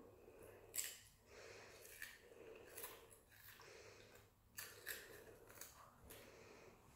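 A child chewing a crunchy fry-shaped snack: faint, irregular crunches and mouth clicks.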